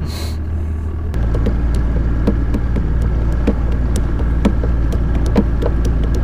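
Bass boat outboard motor running at low speed in gear: a steady low hum that steps up slightly about a second in, with short knocks about twice a second.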